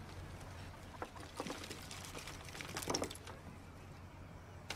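Small objects shaken out of a cloth pouch and clattering onto a wooden table, a few light clicks with the loudest cluster about three seconds in, over a steady low hum.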